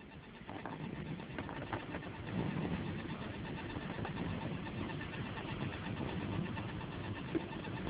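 Low, rasping snoring that grows louder over the first second and then holds steady.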